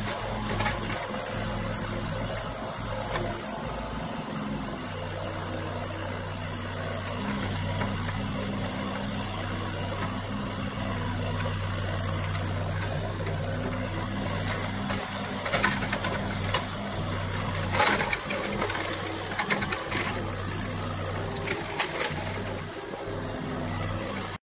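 Kubota U35-4 mini excavator's diesel engine running steadily under working load. Over the second half there is a series of sharp knocks and cracks from the digging at the stump.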